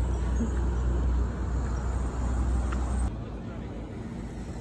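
Low, steady rumble of street traffic that drops away abruptly about three seconds in, leaving quieter background noise.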